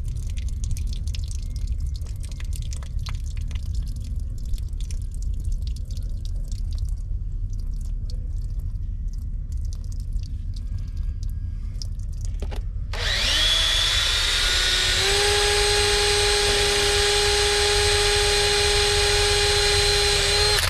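Water dripping from holes drilled in a fiberglass sailboat keel, over a low rumble; the dripping is water trapped inside the keel draining out. About two-thirds of the way in, a Makita 18V cordless drill spins up with a rising whine and runs at a steady pitch as it bores into the keel, then cuts off.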